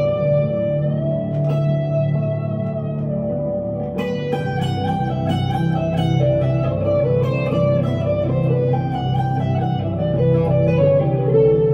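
Electric guitar lead played on a 1965 Fender Stratocaster through a Glaswerks Zingaro 1x12 amp. A held note is bent up in pitch about a second in, then quicker runs of single notes follow from about four seconds in, over sustained low tones.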